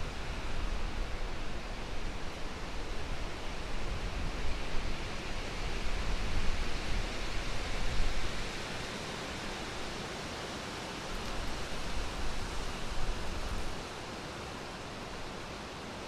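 Wind blowing through the trees as a steady rushing hiss, with gusts buffeting the microphone as low rumbles through the first half and again briefly later. The gusts drop away shortly before the end, leaving only the steady hiss.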